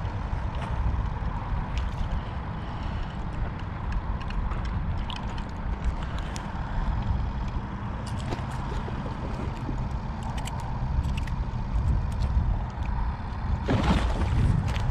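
Wind rumbling on the microphone, with scattered light clicks and taps from handling the fishing rod, line and pliers. A louder burst of noise comes about a second before the end.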